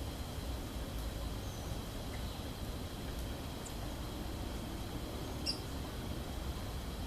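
A few brief, high bird chirps, the loudest about five and a half seconds in, over a steady low rumble and a faint, steady high-pitched hum.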